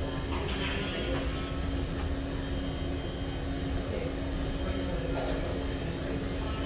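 Steady low mechanical hum and rumble with a constant tone, and a few faint clicks.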